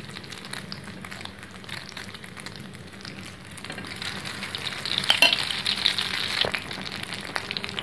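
Egg-coated bread-and-potato patties sizzling and crackling as they deep-fry in hot oil in a small pan. From about four seconds in the sizzle grows louder as hot oil is spooned over them, with a few sharp clicks.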